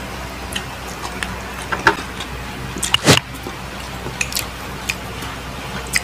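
Eating sounds of people chewing braised pork on the bone with their hands: scattered short wet clicks and smacks, the loudest about three seconds in, over a steady low hum.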